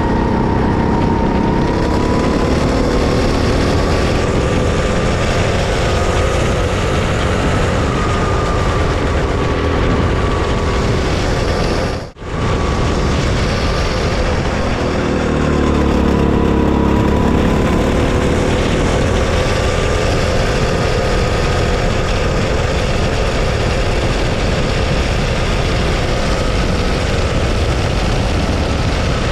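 Go-kart engine heard from the driver's seat at racing speed, its pitch dipping and climbing again as the kart brakes and accelerates through the corners. The sound cuts out for a moment about twelve seconds in.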